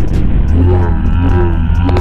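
Motorcycle riding at speed on a helmet camera: heavy wind buffeting over a low engine rumble, with two faint drawn-out vocal cries from a rider and a sharp knock near the end.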